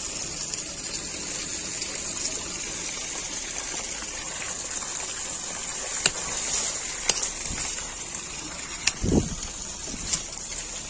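Dry aerial roots and twigs of a weeping fig (Ficus benjamina) snapping sharply four times, with a dull rustling thump about nine seconds in, over a steady high hiss.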